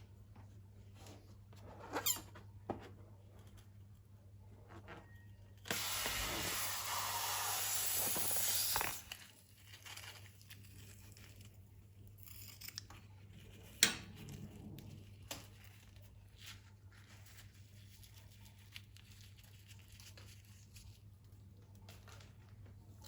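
Balloons and slime being handled: a few scattered small clicks and squeaks, and a hiss lasting about three seconds roughly six seconds in.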